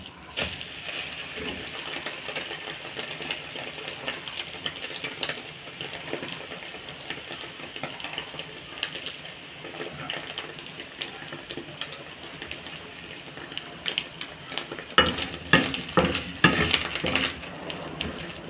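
French toast sizzling in a hot black iron pan, a steady crackling fry. In the last few seconds a metal spatula scrapes and clatters against the pan as the slice is pressed and turned.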